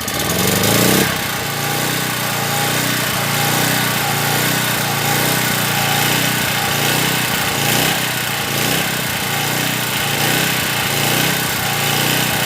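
Small petrol generator engine running on a test start after a no-start repair. It runs louder for about the first second, then settles to a steady run.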